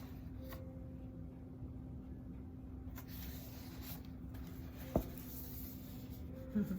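Quiet room with a faint steady low hum and a single sharp tap about five seconds in, with a faint rustle just before the end.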